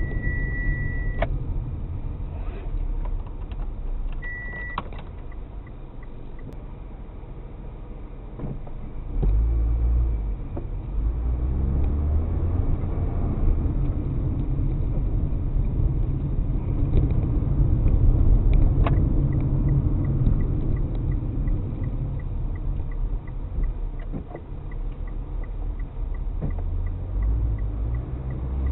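A car driving on city streets, heard from inside the cabin: a steady low rumble of road and engine that grows louder about nine seconds in. A short high beep sounds about four seconds in, followed by faint, evenly spaced ticking.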